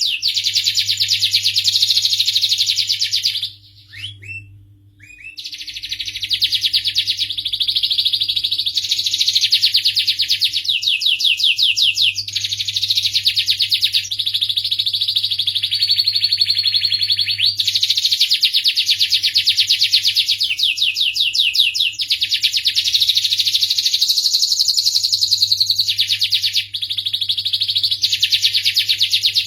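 Domestic canary singing a long, continuous song of fast rolling trills, with a short pause about four seconds in.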